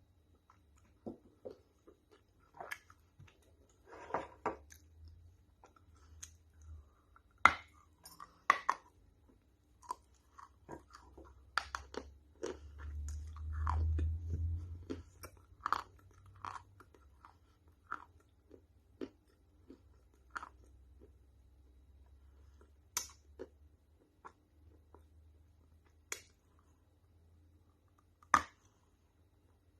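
A person chewing something crunchy, with sharp, irregular crunches about once a second and a low rumble near the middle.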